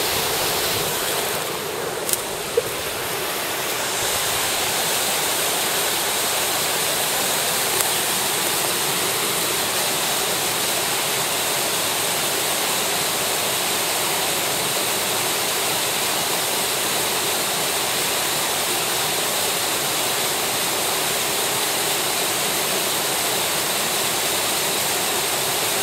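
Small mountain stream rushing steadily, with a couple of short clicks about two seconds in.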